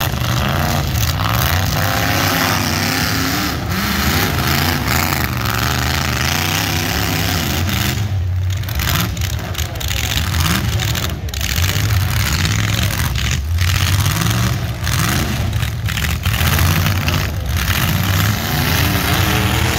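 Full-size demolition derby cars' engines running and revving, loud, with the engine pitch rising and falling repeatedly.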